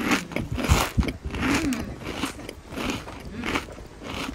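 Crunchy bites and chewing of crispy fried chicken (Jollibee Chickenjoy), a crackly crunch about every half second.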